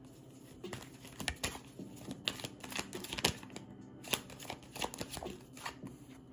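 A deck of oracle cards being handled close by: a run of irregular sharp flicks and rustles of card stock as the cards are shuffled and a new card is drawn.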